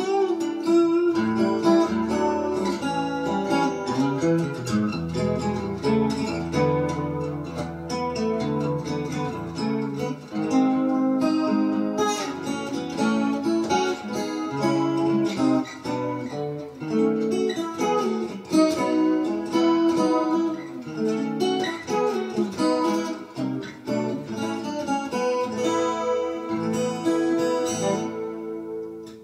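Background music led by plucked and strummed guitar, playing a steady run of notes.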